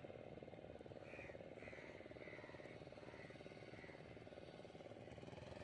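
Near silence: the faint, steady, rapidly pulsing drone of a small fishing boat's motor crossing the harbour, with a faint run of about six short high notes in the middle.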